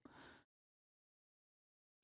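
Near silence: a faint trace dies away within the first half second, then the track is completely silent.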